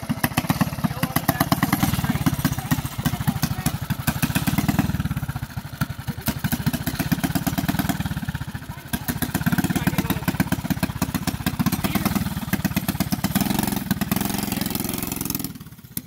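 Mini bike's small single-cylinder engine running close by in quick, even firing pulses, its sound dropping back twice and then picking up again as the throttle is worked.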